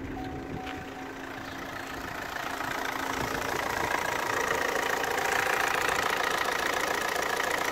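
Opel 1.7 CDTI (A17DTJ) four-cylinder turbodiesel idling steadily with diesel clatter, growing louder over the first few seconds and then holding steady.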